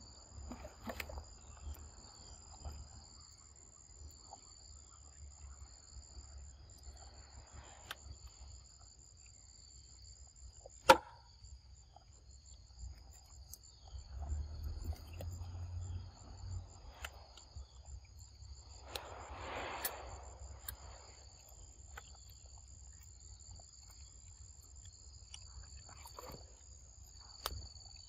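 Insects chirring steadily in two high pitches throughout, over soft chewing and rustling from a macaque eating fruit close by. A single sharp click about 11 seconds in is the loudest sound.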